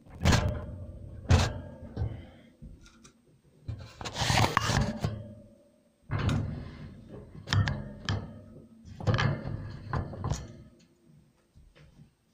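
A string of knocks and thuds with a longer rustling burst about four seconds in, straw bedding being shifted around a guinea pig cage.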